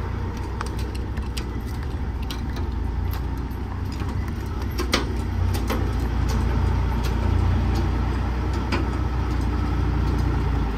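A heavy truck's diesel engine running steadily at a low rumble, with scattered light clicks and taps over it and a sharper knock about five seconds in.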